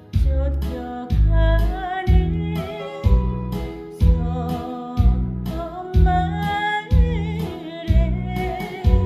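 Korean trot song: a singer's voice with wide vibrato over a backing band with a heavy, steady bass beat about once a second.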